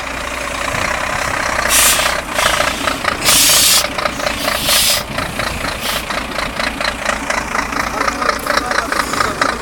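Scania truck's diesel engine idling with a fast, even clatter, and several short hisses of air from its air system, the loudest about two and three and a half seconds in.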